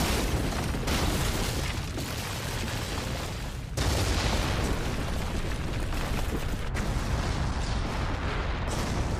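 Explosion sound effects from an animated battle scene: a continuous heavy rumble of blasts, with a fresh, louder blast about four seconds in.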